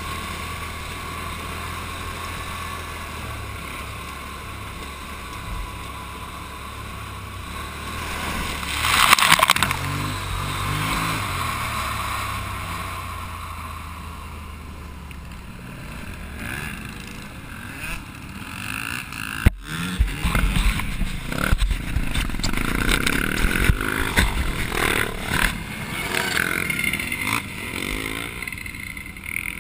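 Quad bike (ATV) engine running steadily as it rides along a dirt and gravel track, with a brief loud splash through a puddle about nine seconds in. In the second half the sound turns rougher and uneven, with rumble, rattling and wind on the microphone as the quad bumps over rough ground.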